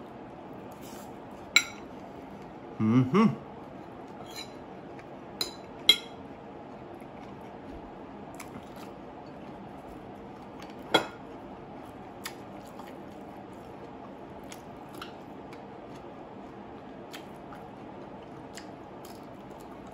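A metal spoon clinking against a plate now and then, four or five sharp separate clicks, with quiet eating sounds and a short hummed "mm" about three seconds in.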